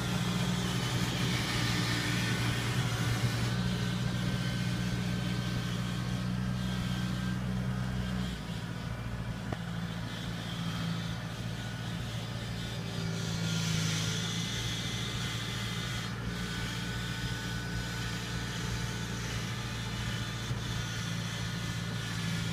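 Diesel engine of a Kubota tracked rice combine harvester running steadily as it drives along a dirt track. Its note changes and drops slightly about eight seconds in.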